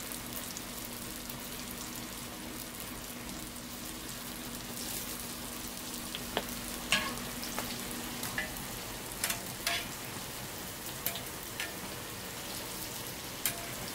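Hotteok frying in a deep tray of oil, a steady sizzle. From about six seconds in, a run of sharp metal clicks and taps as the steel hotteok press is worked in the pan.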